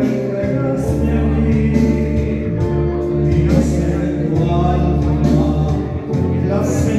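Live music: a male singer singing over instrumental backing with a steady bass line.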